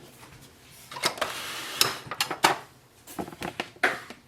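A screwdriver working small screws out of an Epson EcoTank printer's printhead mount. There is a scrape about a second in, and sharp clicks of the tool against the screws and plastic housing.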